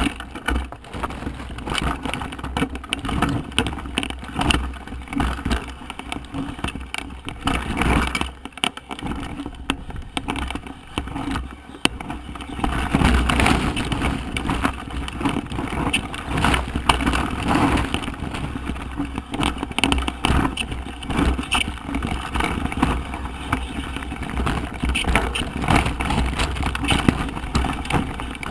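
Mountain bike rolling down a rough trail of loose limestone rocks: tyres crunching over stones and the bike rattling with many quick knocks, over a steady low wind rumble on the microphone.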